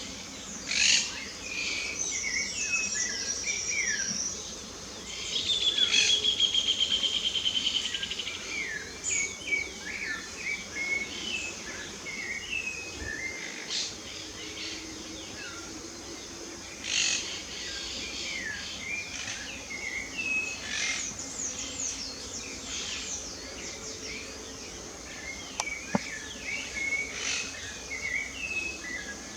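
Several wild songbirds singing and calling together, a steady stream of short chirps and whistled notes. The loudest moment is one bird's fast, even trill held for about three seconds a few seconds in, and a single sharp click comes near the end.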